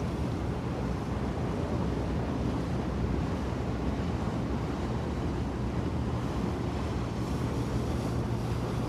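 Harbour ambience: a steady wash of water and wind with a deep rumble underneath, no single event standing out.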